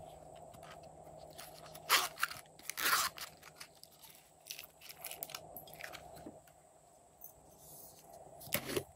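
Small plastic containers handled up close: a hinged clamshell case clicked open, with sharp clicks and crackles, loudest about two and three seconds in and again near the end, over a faint steady hum.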